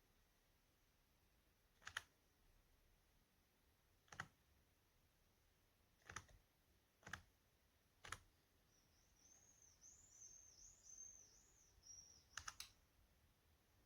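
Faint single clicks at a computer keyboard or mouse, about six of them one to two seconds apart, the last two close together. A faint high warbling chirp runs for about three seconds shortly before the last clicks.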